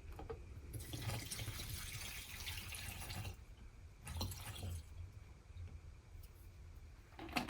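Kalosha benzine being poured and trickling into a bottle packed with grated household soap: a faint liquid trickle in two spells, a longer one from about a second in to past three seconds and a shorter one around four seconds.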